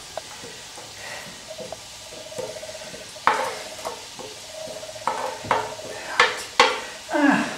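A spatula scraping chopped chard filling off a tray into a bowl, with several sharp knocks of spatula and tray against the bowl in the second half.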